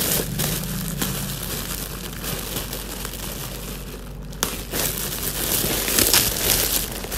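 Crinkly plastic gift packaging being handled and pulled open, rustling and crackling almost without a break, with a short pause about four seconds in.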